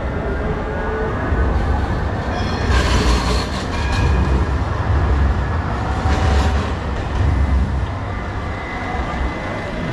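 Low-floor street tram passing close by: a low rumble of steel wheels on the street rails that swells through the middle and eases near the end, with a few short high squeals.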